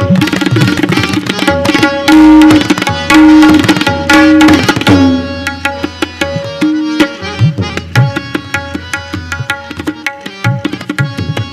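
Solo tabla played fast by hand: a dense run of crisp strokes on the treble drum, mixed with deeper ringing tones that are held and, about five seconds in, slide down in pitch. After that the strokes are lighter and more spaced out.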